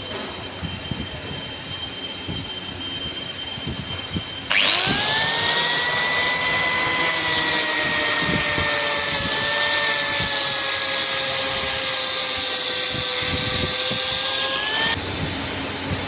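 A handheld electric polishing tool is switched on about four seconds in. It spins up with a rising whine, runs steadily for about ten seconds, then stops abruptly near the end. It is likely working an abrasive or buff on stainless steel. Before it starts, a quieter steady hum with a thin high tone is heard.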